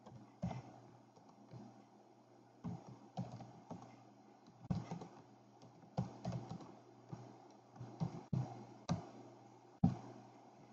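Typing on a computer keyboard: a run of irregular keystrokes, some in quick clusters, with the loudest click near the end.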